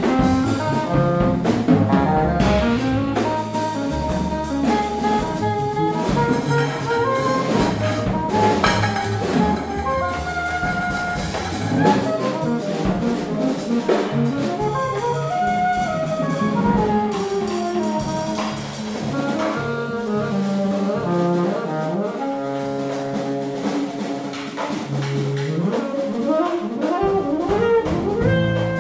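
Contemporary jazz quartet playing live: alto and tenor saxophones weaving melodic lines over double bass and drums. The low end thins out about two-thirds of the way through.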